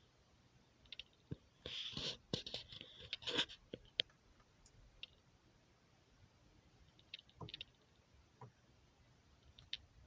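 Faint scattered clicks, with a short cluster of scraping and rattling about two to three and a half seconds in, from the plastic and metal parts of an ARES L85A3 airsoft rifle being handled and taken apart.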